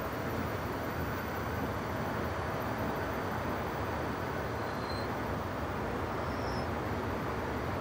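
Escalator running steadily: a continuous rumble from the moving steps and handrail, with a faint steady hum.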